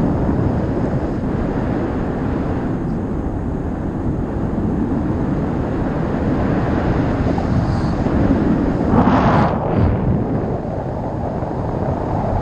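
Wind rushing over the microphone of a camera carried by a paraglider pilot in flight: steady, loud buffeting airflow, with a sharper gust about nine seconds in.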